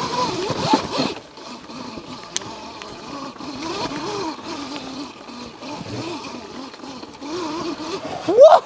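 Electric dirt bike riding down a rough, rooty forest trail: a motor whine that rises and falls with the throttle over the noise of tyres on dirt, roots and leaves, with occasional knocks and clicks. A rider's whooping cry near the end.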